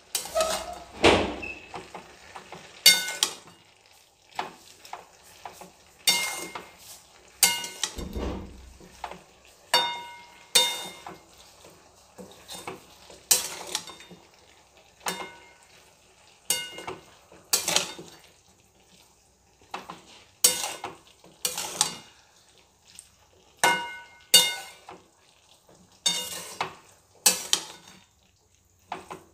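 A metal spatula stirring cabbage curry in a metal kadai, knocking and scraping against the pan with irregular ringing clinks about once a second.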